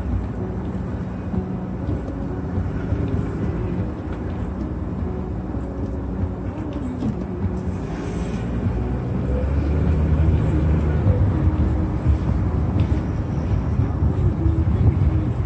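A car moving slowly on a wet road: a steady low rumble of engine and tyre noise that grows louder about halfway through.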